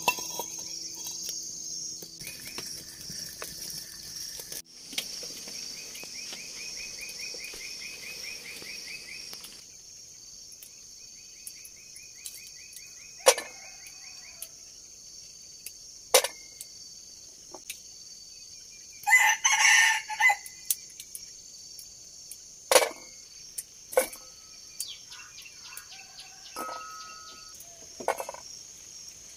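A rooster crows once, about two-thirds of the way in, over a steady high buzz of insects. A few sharp knocks sound at intervals.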